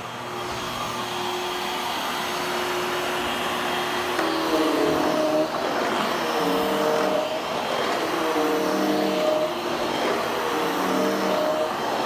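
Hushtone vacuum cleaner running on its low power setting over carpet. From about four seconds in it gets louder and its hum dips and rises in a repeating pattern every two seconds or so as the head is pushed back and forth.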